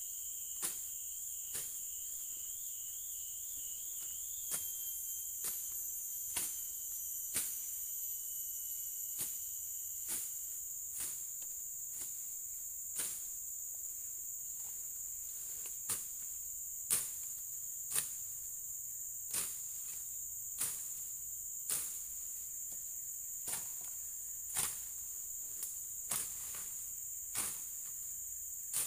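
A long-handled slasher blade swishing and cutting through grass and brush in short strikes, roughly one a second, over a steady high-pitched insect chorus.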